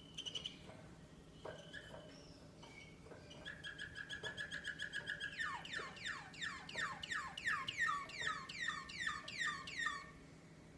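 American Singer canary singing: a few short chirps, then a rapid trill of repeated notes from about three and a half seconds in, changing about two seconds later to a fast series of falling sweeps that stops near the end.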